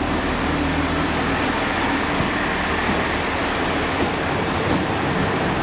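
Transport for Wales diesel multiple-unit train moving past along the platform: a steady low hum from its underfloor diesel engines over the even rumble of wheels on the rails.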